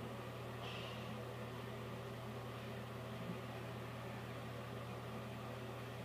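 Steady low hum with faint background hiss.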